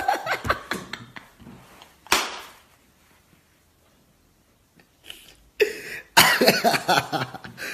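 A man laughing. A sharp breathy burst about two seconds in, then a near-silent pause, then he laughs again from about five and a half seconds on.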